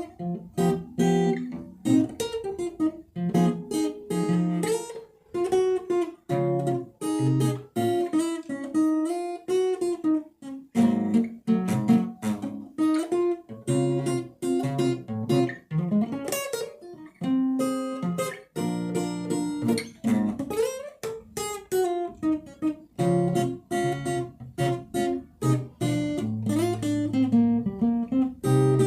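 Solo acoustic guitar playing: a run of picked notes and strummed chords, with a few notes sliding in pitch.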